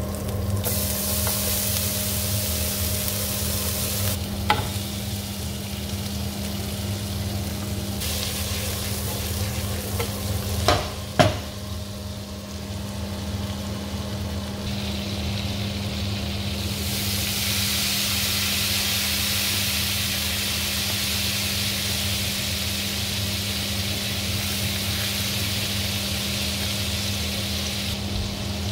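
Garlic sizzling in hot fat in a frying pan, with a few sharp clinks about a third of the way in. Butter then melts and foams in the pan, and from a little past halfway the sizzle grows louder and brighter. A steady low hum runs underneath.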